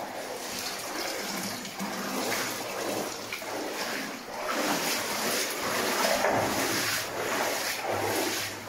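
Splashing and sloshing of water as people wade through it, swelling with each step roughly once a second.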